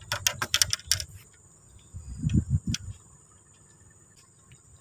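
A quick run of small sharp metallic clicks in the first second, then a few dull handling thumps, over a steady high drone of insects.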